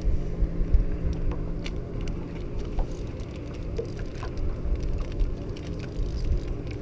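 Boat's outboard engine idling with a steady low hum, with wind buffeting the microphone and a few faint clicks.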